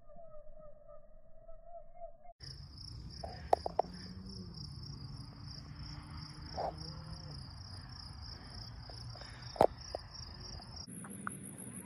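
Night insects chirping in a steady pulsing trill. The chorus changes abruptly twice, once early and once near the end. A few sharp clicks stand out, the loudest about three and a half and nine and a half seconds in.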